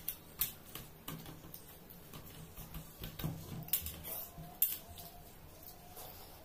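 Eating by hand from stainless steel divided plates: irregular light clicks, taps and smacks as fingers work rice against the steel and the food is chewed.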